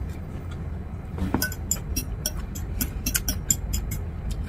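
Close-miked eating sounds from a salad mukbang: quick crisp clicks and crunches of a fork working in a bowl and of chewing raw salad, starting about a second in, over a steady low hum.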